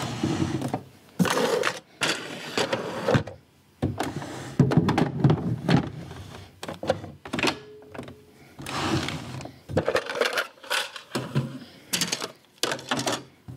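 Hard plastic parts of a Brother SE600 sewing and embroidery machine being handled: the embroidery unit set down and fitted onto the machine, with irregular clunks, knocks and rustling.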